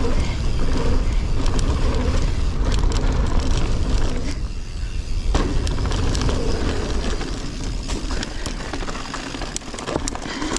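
Mountain bike ridden fast down a dirt jump trail: knobby tyres rolling on packed dirt, heavy low rumble and wind noise on the chest-mounted camera, with clicks and rattles from the bike. A little past four seconds in, the rolling noise drops away for about a second, then comes back with a sharp knock.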